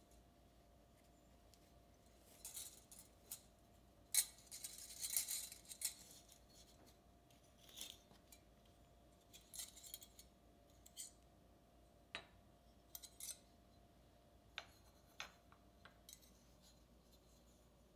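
Metal star-shaped cookie cutters clinking lightly against each other and tapping down on a wooden table as they are taken out of a cloth drawstring bag, with the bag's fabric rustling. Soft scattered clicks throughout, with a longer stretch of rustling about four to six seconds in.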